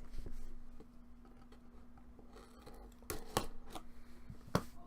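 Hands opening and handling a trading-card box and its packs: light rustling with scattered sharp clicks, a cluster about three seconds in and the loudest near the end, over a faint steady hum.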